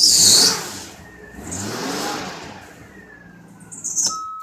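2000 Mazda Millenia's V6 engine running and revved up and down twice, just after starting with its fuel pump relay jumped. That it runs this way shows the pump works and the computer is failing to ground the relay. A loud hiss cuts off about half a second in.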